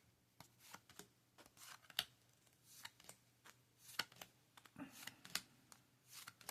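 Yu-Gi-Oh! trading cards being handled and flicked through by hand: a string of soft, irregular snaps and swishes, about one or two a second, over a faint steady hum.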